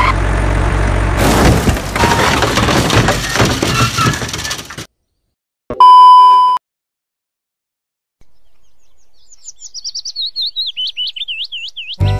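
A rough, dense noise for about four and a half seconds that cuts off abruptly, then silence, then a loud steady beep of under a second: the test tone that goes with TV colour bars. After another silence, rapid chirps gliding up and down in pitch, growing louder toward the end.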